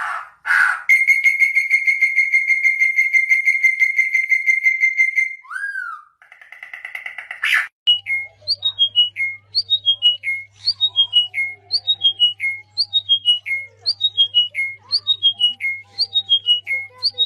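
Bird song: a rapid, high trill held for about four seconds, then a short whistled phrase of a few notes falling in pitch, repeated over and over at about one a second.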